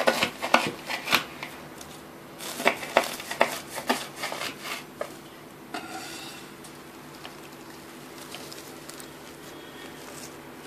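The crisp, flaky layers of a baked cheese börek crackling and crunching as a knife cuts through them on a wooden board. The crackling comes in two spells, in the first second and a half and again from about two and a half to four seconds in.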